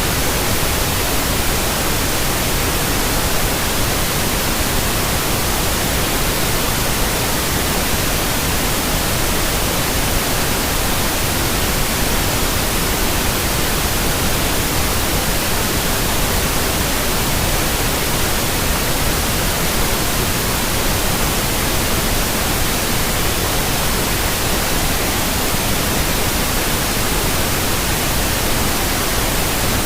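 Steady, even white noise played as a baby sleep aid: a constant hiss spread evenly across the whole range, with no changes.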